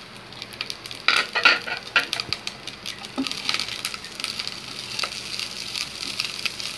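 Boiled rice sizzling in hot oil and sauce in a black wok as it is stir-fried, with a spatula scraping and knocking against the pan; the loudest scrapes come about a second in.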